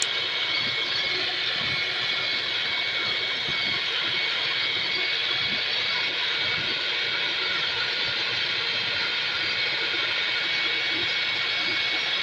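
Electric pressure washer running steadily, its water jet hissing as it sprays, with a thin steady whine.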